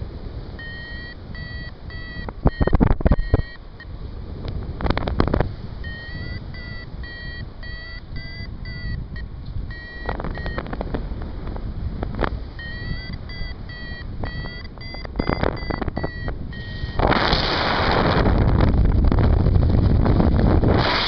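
Paragliding variometer beeping in rapid short tones that shift slightly in pitch, the audio climb signal that the glider is rising in lift. Gusts of wind buffet the microphone, and from about two-thirds of the way in a loud, steady wind rush drowns the beeps out.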